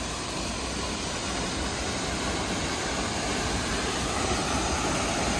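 Steady rush of falling water from the Pulhapanzak waterfall, getting slightly louder toward the end.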